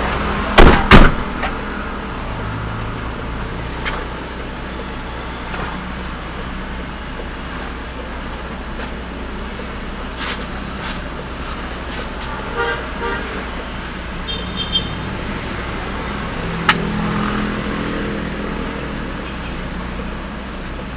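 Steady low drone of a stopped fire truck's idling engine heard through its dashcam, with road traffic passing. Two loud sharp knocks come about a second in, and a few short horn toots follow past the middle.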